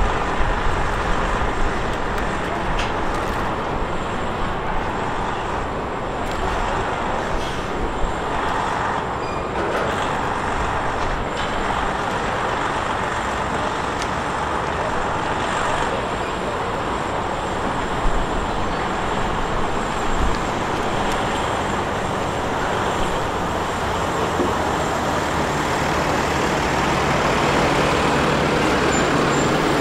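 Diesel engine of a heavy-haul semi truck running as it pulls a loaded trailer slowly forward. It grows louder and deeper over the last few seconds as the truck draws near.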